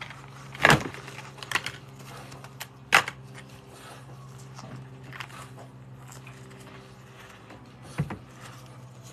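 A steady low hum runs throughout, broken by four sharp knocks or clatters. The loudest come just under a second in and at about three seconds, a smaller one follows shortly after the first, and another comes near the end.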